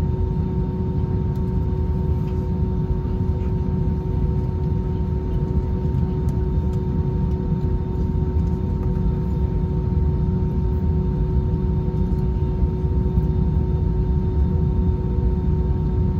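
Steady low rumble inside an Airbus A320 cabin on the ground with its engines running, with a few steady hums on top and no change in pitch or level.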